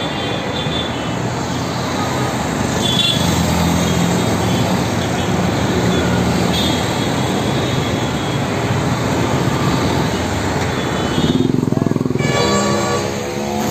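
Busy city road traffic passing close: a steady rush of tyre and engine noise. A bus's low engine drone runs through the middle, there is a short horn toot about three seconds in, and an auto-rickshaw's small engine passes near the end.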